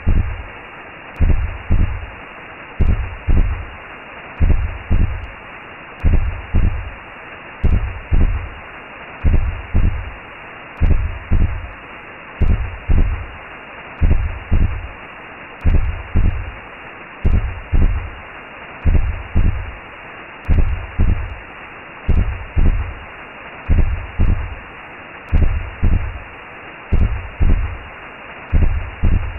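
Recreated womb sound: a steady whooshing hiss with a low, double heartbeat thump repeating evenly, a little more than once a second.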